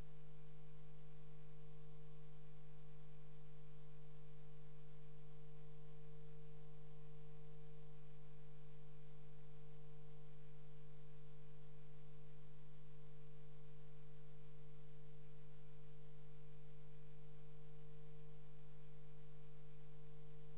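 A steady, unchanging hum made of several constant tones, the loudest a low one, with nothing else happening.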